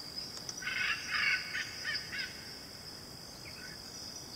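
Echidna sound played for the listener: a quick run of about six short, faint calls in the first two seconds or so, then two fainter ones near the end.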